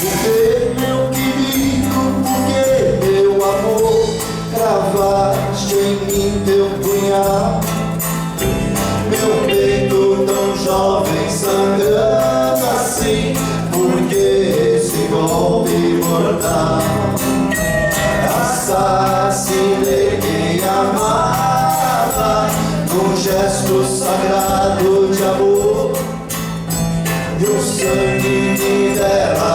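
Live band music with a sung or played melody over a steady bass line.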